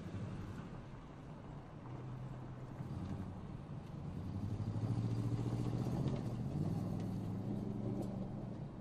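2015 Toyota Tundra TRD Pro's 5.7-litre V8 pulling hard as the pickup drives fast on a dirt track. It grows louder to a peak about five seconds in as the truck passes, then fades as it drives away.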